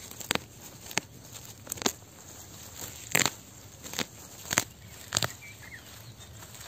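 Fenugreek plants being pulled up by hand from dry soil: about ten irregular sharp snaps and crackles as stems and roots break, the loudest a little after three seconds in.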